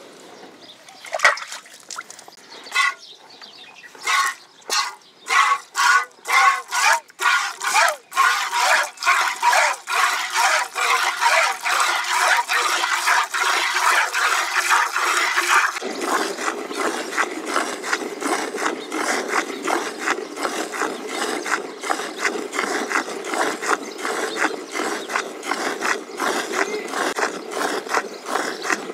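Hand-milking a water buffalo: jets of milk squirt rhythmically into a steel pail. The strokes start about four seconds in at about two a second and then quicken. About sixteen seconds in the sound turns lower and fuller.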